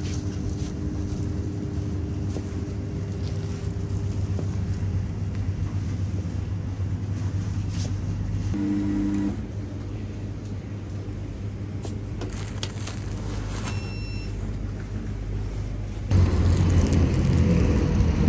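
Steady low hum and background noise inside a grocery store, with a short electronic beep a few seconds before the end. About two seconds before the end it gives way to a louder rumble of street traffic.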